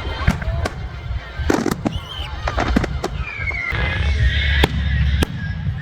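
Fireworks show: a quick, irregular series of sharp bangs and crackles over a steady low rumble.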